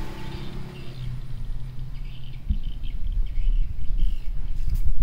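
Low rumble with irregular dull thumps, growing louder in the second half, under faint bird chirps.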